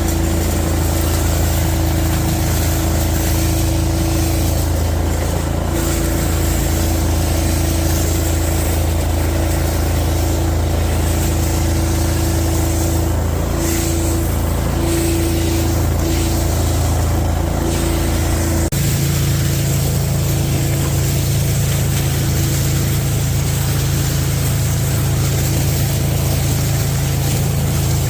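Engine-driven industrial debris vacuum running steadily while sucking up storm-blown corn trash. About two-thirds of the way through, its hum abruptly settles at a different pitch.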